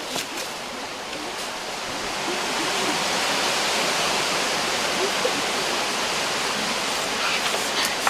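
Water of a shallow rocky stream running over stones, a steady rushing hiss that swells slightly about two seconds in.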